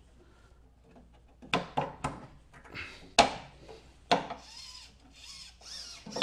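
3D-printed plastic utility-arm parts being handled and worked into the body by hand: about five sharp plastic clicks and knocks, with scraping and rubbing between them.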